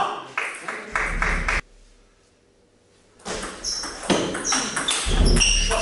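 Table tennis ball being hit back and forth in a doubles rally: sharp clicks of ball on bats and table, each with a short high ping. The clicks stop for a gap of about a second and a half near the middle, then a quick rally picks up again.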